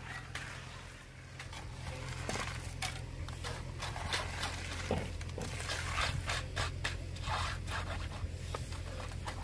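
Hand tools scraping and spreading wet concrete in a string of irregular scrapes, over a steady low engine hum.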